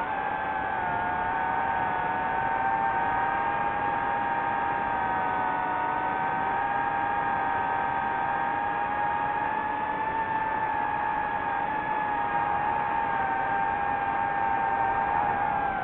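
DJI FPV quadcopter's motors and propellers whining steadily in flight, several close pitches drifting slightly up and down as the motor speeds shift.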